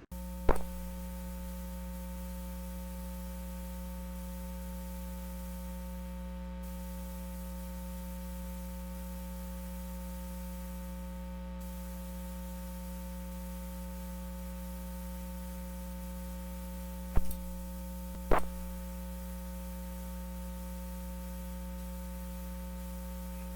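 Steady electrical hum made of several fixed tones, with a few sharp clicks: one about half a second in and two close together near the 17 to 18 second mark.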